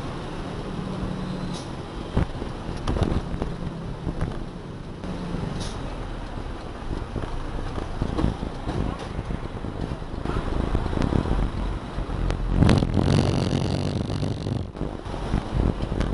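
Isuzu self-loader truck's diesel engine running, heard from inside the cab while driving slowly in traffic, with scattered knocks and rattles and a louder burst with a high tone about twelve seconds in.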